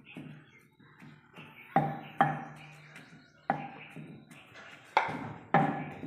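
Long wooden pestle pounding boiled potatoes in a mortar: lighter knocks at first, then five heavy thumps, each with a short ring.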